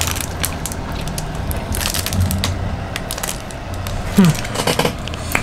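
Plastic candy wrapper being handled and opened, giving an irregular run of crinkles and crackles.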